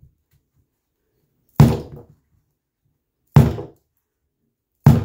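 Mallet striking a felt-topped timber tapping block three times, about a second and a half apart, each a short dull knock that dies away quickly, driving a carpet edge down into the gripper of an aluminium Zee Bar trim.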